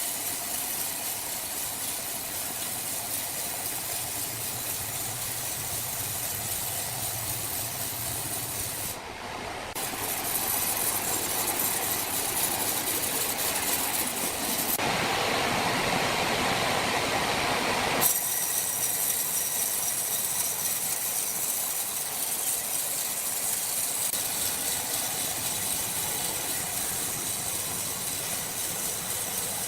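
Sawmill machinery running with a steady mechanical hiss and rumble. It dips for a moment, then gets louder and harsher for a few seconds in the middle, changing abruptly each time.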